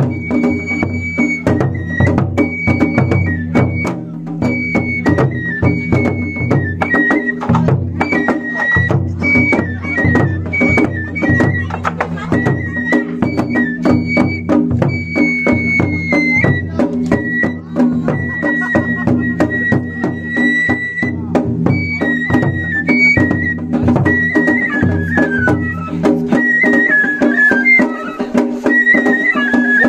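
Japanese festival float music (matsuri bayashi): a high bamboo flute plays a wavering melody over fast, continuous beating on taiko drums.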